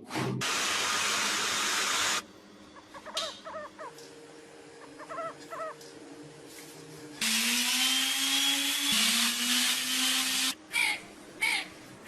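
Two long bursts of power-tool noise from motorcycle restoration work. In the quieter stretch between them, a few short clucking calls like a chicken's are heard.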